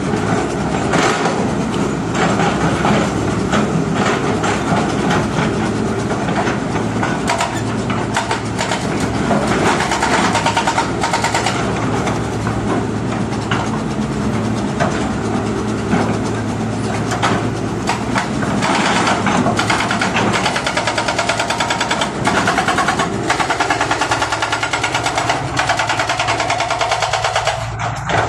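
Hydraulic breaker on a Hitachi excavator hammering rock with rapid, continuous blows over the excavator's diesel engine running. The hammering stops near the end while the engine keeps running.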